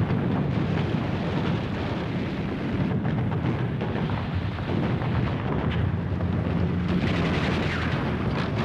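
Battle sound: dense gunfire and explosions over a continuous low rumble.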